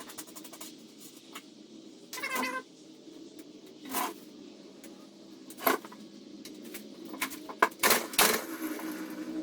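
A cat meowing once, a short wavering cry about two seconds in, with scattered sharp clicks and knocks around it.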